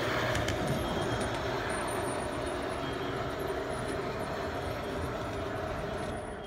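G-scale model train running on the layout: a steady rumble and hum with faint clicks, starting to fade near the end.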